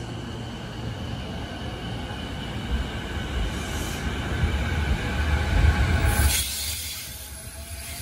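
JR E233-series 5000 electric train pulling away from the platform: its inverter-driven traction motors whine in several tones that rise in pitch as it gathers speed, over a low rumble of wheels and bogies that swells. About six seconds in, the whine and rumble drop away abruptly.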